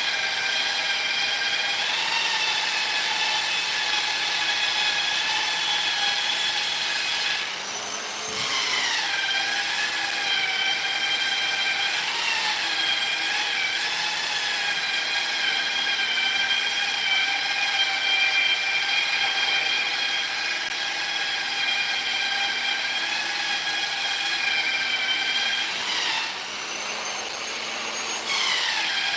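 Handheld electric polisher running on a wooden tabletop: a steady, high-pitched motor whine. Its pitch and loudness sag and recover twice, about eight seconds in and again near the end, as the tool is loaded or briefly let off.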